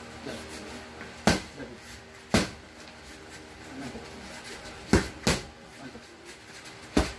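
Boxing gloves smacking into handheld focus mitts: five sharp slaps, irregularly spaced, two of them in quick succession about five seconds in.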